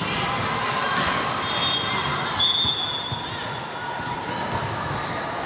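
Busy volleyball hall: balls thudding on the court and indistinct voices and shouts from players on the courts, with a couple of short high tones about two seconds in.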